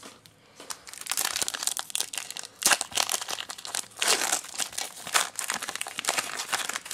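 Foil wrapper of a Pokémon card booster pack crinkling and tearing as it is ripped open by hand, starting about a second in as a run of dense crackles with several louder bursts.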